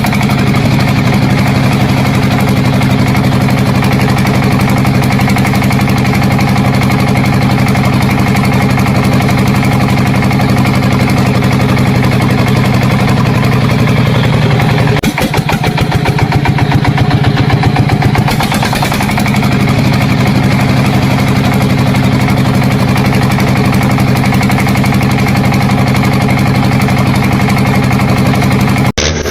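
An engine running steadily at idle, with a brief wobble about halfway through and a sudden change just before the end.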